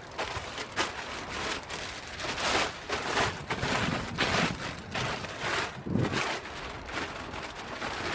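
Gusty wind buffeting the phone's microphone, an uneven rushing noise that swells and fades in short surges.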